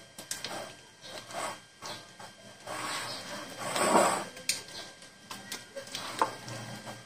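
Silicone spatula stirring a thick chicken-and-mayonnaise filling in a bowl: irregular swishing and scraping strokes, the loudest about four seconds in, with a few light clicks against the bowl.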